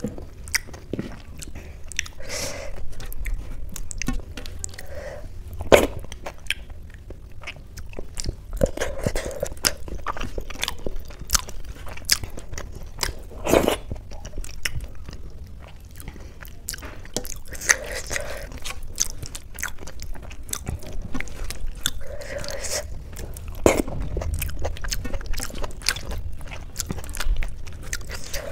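Close-up eating sounds: chewing and wet mouth smacks while eating mashed boiled rice with dal and potato by hand, with fingers squishing the rice on a steel plate. Many short sharp clicks, with louder smacks about six seconds in and near the middle.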